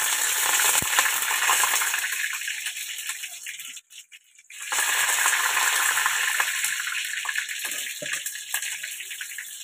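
Curry leaves spluttering and sizzling in hot oil for a tempering: a sudden loud crackling hiss that slowly fades, breaks off briefly about four seconds in, then starts again loud and fades.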